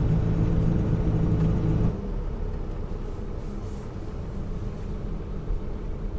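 Fiat Ducato camper van driving, heard from inside the cab: a steady engine hum for about the first two seconds, then a drop to a quieter low road rumble.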